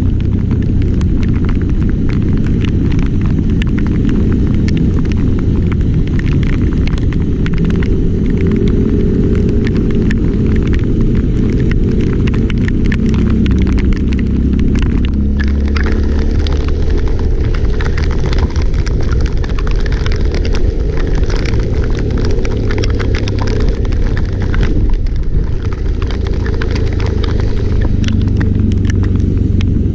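Vehicle engine running under a heavy low rumble of wind buffeting the microphone, with many scattered sharp ticks.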